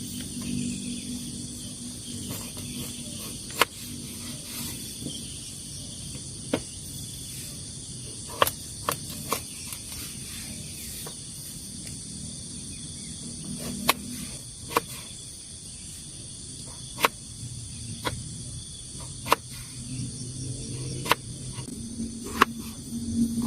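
Rain drips tapping on a tent, irregular sharp taps about every second or two over a steady high hiss.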